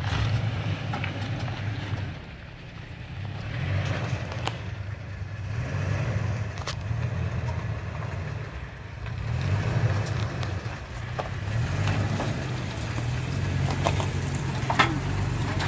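A stock 2021 Toyota Tacoma TRD Off-Road's V6 engine running at low revs, swelling and easing as the truck crawls over rock ledges. Its tyres crunch over rock and loose stone, with a few sharp clicks and knocks.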